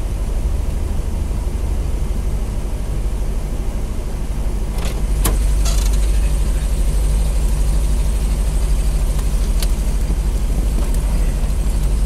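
Pontiac Trans Am engine idling steadily, heard from the car's cabin. It gets louder about five seconds in as the door opens, with a few sharp clicks around then and another near ten seconds.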